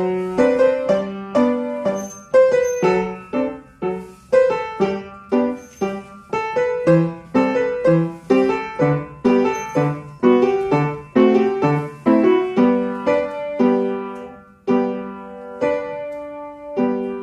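Piano accompaniment for a ballet barre exercise: struck chords on a steady, accented beat, about two a second, ending on a held chord near the end.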